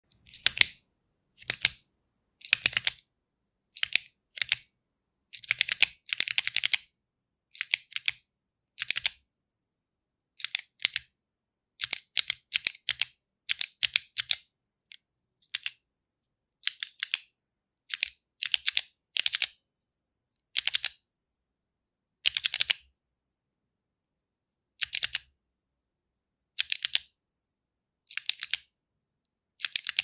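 Black retractable ballpoint pen's push-button clicked repeatedly under the thumb: sharp, bright clicks in pairs and quick runs of several, with short pauses between groups.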